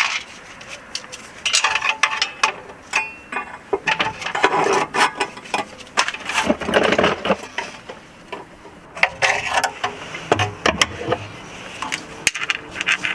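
Irregular metallic clinks, taps and scrapes as a handbrake cable and its rubber bushing are worked by hand into their bracket under the rear of a car.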